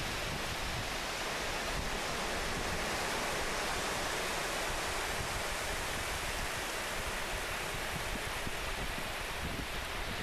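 Steady rush of sea surf, with wind rumbling on the microphone.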